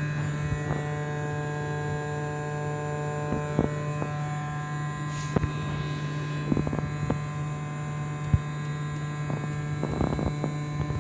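Small DC motor running steadily at full PWM duty, a continuous hum with several steady higher tones. A few short clicks are scattered through it.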